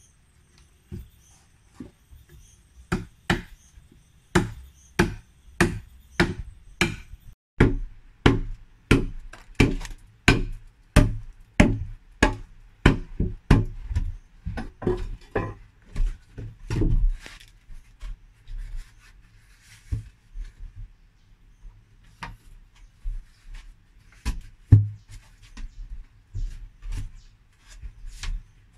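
Wood striking wood: a pole knocking repeatedly against the logs of a log-framed pit roof, about two knocks a second, then sparser knocks in the second half with one loud one near the end.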